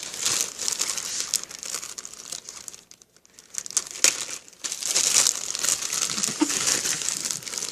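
Crinkly crackling from a cheap slime being handled, in uneven bursts with a short lull partway through.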